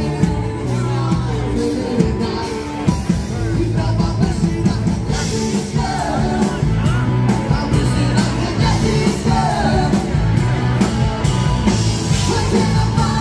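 Live band on stage playing a song: a singer over drums, bass and guitar.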